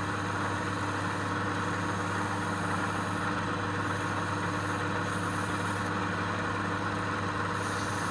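A motor running steadily with a constant hum, unchanged in pitch and level throughout.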